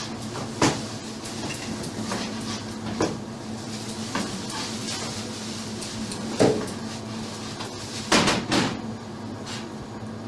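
A kitchen knife knocking on a cutting board as thin lemon slices are cut, with a few scattered knocks and clatters, two close together near the end, over a steady low hum.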